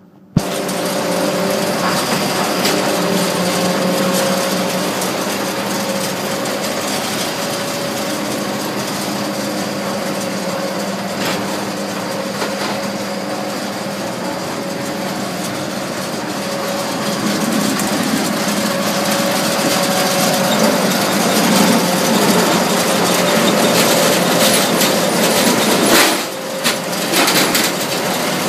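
Mobile Cambio 45 ring debarker running, a loud steady machine noise with a constant hum that starts suddenly and dips briefly near the end.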